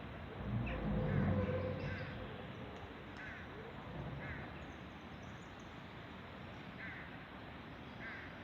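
Short, squeaky, creak-like bird calls repeating at irregular gaps of about half a second to two and a half seconds, about seven in all. A low rumble swells and fades during the first two seconds.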